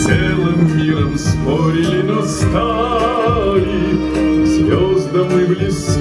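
Music with a singing voice, held notes with a wavering vibrato in the middle.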